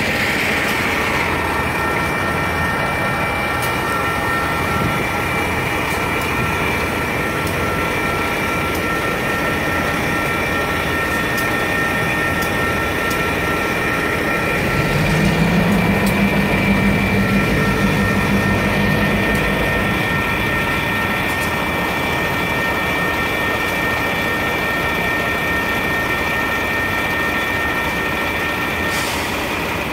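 Railroad crossing electronic bell ringing steadily over the rumble of idling EMD diesel switching locomotives. About 15 s in, a locomotive engine throttles up with a rising low hum, holds for a few seconds, then drops back. The bell stops near the end.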